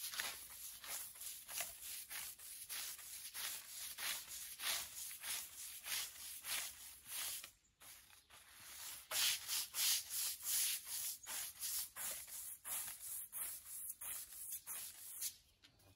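Long-handled stiff-bristled brush scrubbing back and forth over the wet, soapy slats of a roller shutter, about two or three strokes a second, with a short pause about halfway through.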